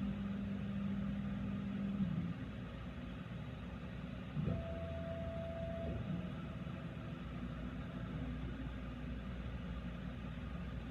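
CNC machine's axis motors whining in steady tones as the machine moves through its automatic probing sequence: a low tone for the first two seconds, then a higher tone starting sharply about four and a half seconds in and lasting about a second and a half, over a constant low machine hum.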